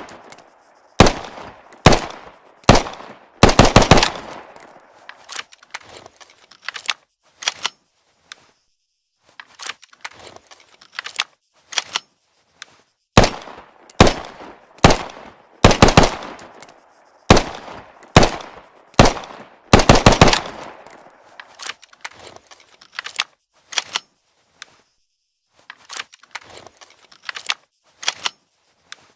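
Automatic pistol firing a long series of shots, some single and some in quick strings of two to four, with short pauses between, each shot followed by a brief ringing echo.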